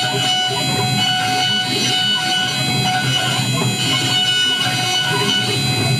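High-frequency spindle of a MillStep PA6050 gantry CNC milling machine whining steadily on several fixed high pitches while a 3 mm engraving tool cuts a stamp, with a rough, uneven cutting noise underneath.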